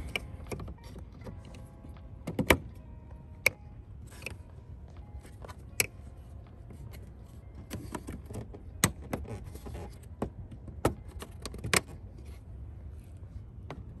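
Plastic clips of an LED snorkel light housing clicking and snapping as the housing is pressed and worked into a car's plastic grille: sharp clicks scattered throughout, a handful of them louder.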